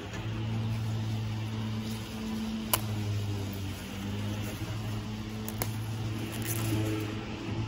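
Steady low machine hum with a constant hiss, broken by a couple of short sharp clicks, about a third of the way in and again just past halfway.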